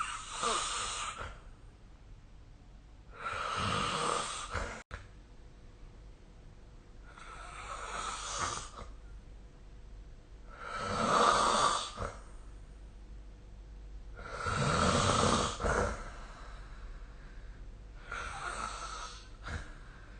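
A sleeping person snoring: six rough snores, one about every three and a half to four seconds, each lasting about a second to a second and a half, with quiet between them.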